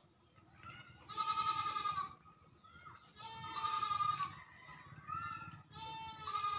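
Repeated quavering animal bleats, four calls, each about a second long.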